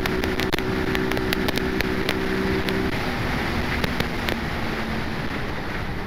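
Brixton Rayburn motorcycle engine running at a steady cruise, with heavy wind noise on the camera microphone. About halfway through, the engine note falls away to a weaker, lower tone, leaving mostly wind noise.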